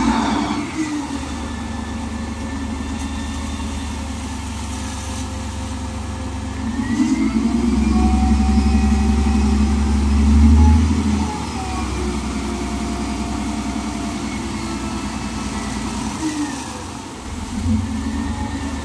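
Heavy mining-machine diesel engine running steadily, revving up about seven seconds in and dropping back to a lower speed about four seconds later.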